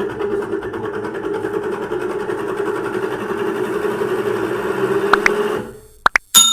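Samsung inverter washing machine's BLDC motor and drum running with a steady, rough grating hum, the noise of worn drum bearings that need replacing; it cuts off nearly a second before the end. Two faint clicks follow, then a sharp metallic ring right at the end.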